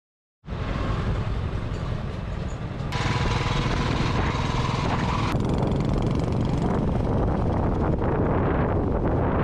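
Royal Enfield Thunderbird single-cylinder motorcycle engine running under way, with steady wind rush on the helmet or bike-mounted camera microphone; it starts abruptly just after the beginning and gets louder about three seconds in.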